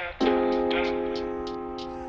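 Background music: a sustained keyboard chord with a light, steady percussion beat, changing chord about a fifth of a second in.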